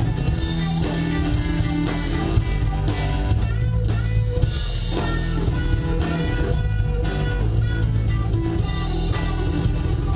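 Live rock band playing an instrumental passage: electric guitars over a drum kit, loud and steady throughout.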